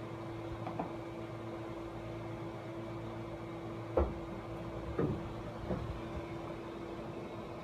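Steady mechanical hum with a constant tone, from a room air-conditioning unit. Three dull knocks about four, five and nearly six seconds in, the first the loudest.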